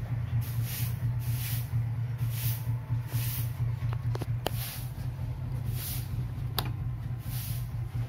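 Maspion orbit ceiling fan running: a steady low motor hum with a rhythmic whoosh of air about once a second. A few sharp clicks come in the second half.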